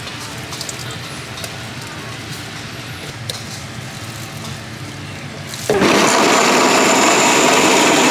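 Light background ambience with a few faint clicks, then an electric blender starts abruptly near the end and runs loudly with a steady high motor whine, blending a fruit shake.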